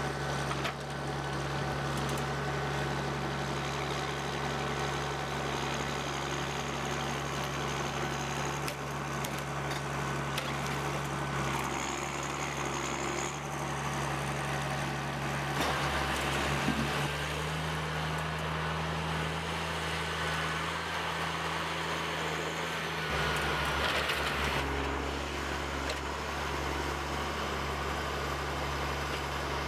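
Engine of a heavy machine running steadily, its tone shifting twice, about halfway through and again near the three-quarter mark.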